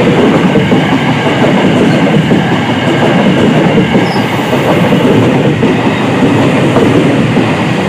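Electric commuter train (KRL) passing close by: a loud, steady rumble and clatter of its wheels on the rails.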